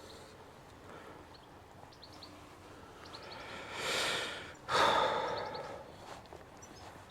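A person breathing close to the microphone: a long breath in, then a sharper sigh out just after it. Faint bird chirps can be heard in the background.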